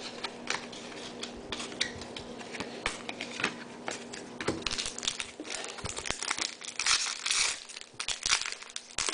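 Foil trading-card pack wrapper crinkling and tearing as it is ripped open by hand: irregular sharp crackles that grow louder and denser about halfway through.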